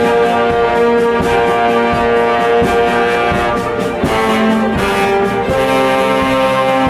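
Orchestra playing a loud passage led by brass holding sustained chords. The chord changes about four seconds in and again a second and a half later.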